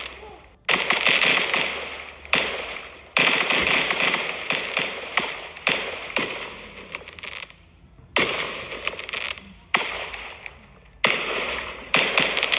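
Aerial fireworks shells bursting in quick succession, each sharp bang followed by a crackling tail that fades away, with a new burst every second or two.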